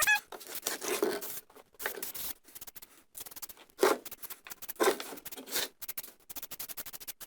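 Penetrating oil sprayed from an aerosol can onto a rusty vise in a series of short hissing spurts, mixed with quick clicks and taps.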